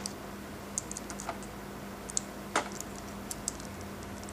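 Scattered small clicks and taps of a plastic action figure being handled and its joints moved, a few sharp ticks spread over a few seconds, over a steady low hum.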